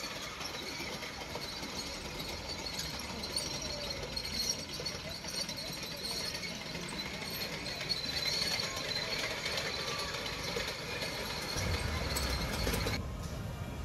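Indistinct crowd chatter over a low rumble of running machinery. The rumble grows louder near the end, and the sound changes abruptly just before the end.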